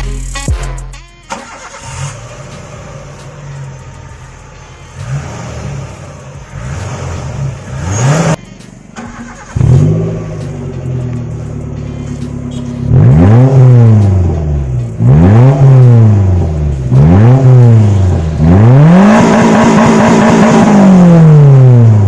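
Maruti Gypsy King 1.3 engine revved through its exhaust: idling with a few light blips of the throttle, then about halfway through three sharp revs that rise and fall, and a longer rev held high before dropping back near the end.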